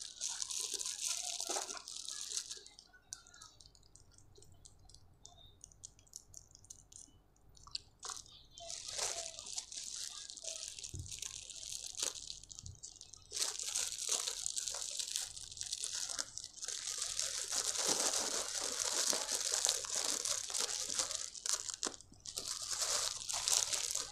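Plastic packaging of a clothing parcel crinkling and rustling as it is handled and opened, in irregular bursts. The crinkling stops for about five seconds a few seconds in, then goes on almost without a break.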